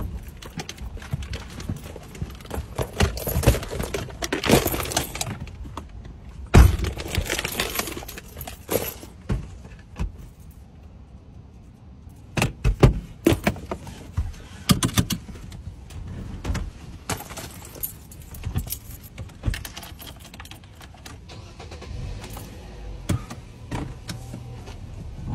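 Handling noises inside a car cabin: a string of clicks, knocks and rustling as someone settles into the driver's seat, works the sun-visor mirror and handles small things such as makeup and keys. The sharpest knocks come about six and a half and thirteen seconds in.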